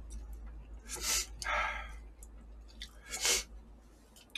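A person blowing their nose into a tissue: two short, breathy blows about two seconds apart. The nose is running from very hot chilli peppers eaten during the meal.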